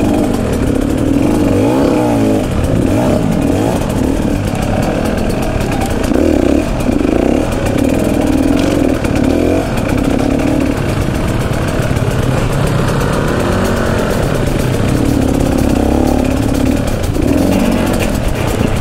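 Two-stroke engine of a 2018 Husqvarna TE150 enduro bike under way, its revs rising and falling again and again with the throttle. Its carburettor's failed jet block gasket has just been replaced, and it pulls cleanly at low throttle instead of burbling.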